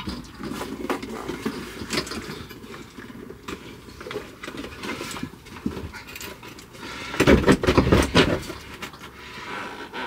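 Irregular knocks, scrapes and rustling as a diesel heater unit is handled and lowered into a hole in a van floor, with a louder run of knocks and scraping about seven seconds in.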